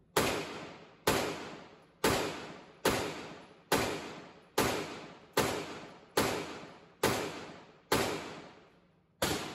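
Glock 43X 9mm pistol firing eleven single shots at a steady pace, about one a second, with a slightly longer pause before the last. Each shot echoes and fades in the indoor range.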